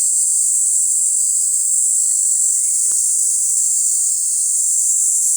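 Cicadas buzzing in a steady, loud, high-pitched drone that never lets up, with a single faint click about three seconds in.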